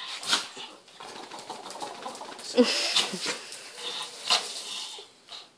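A small dachshund and a shih tzu excited and begging: short dog whines, with scattered clicks and scuffles of claws and paws on a tile floor.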